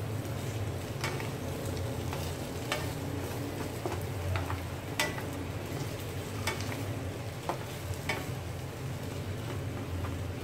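Tofu cubes, onion and green chili sizzling in a frying pan while a wooden spatula stirs them, with scattered scrapes and knocks of the spatula against the pan.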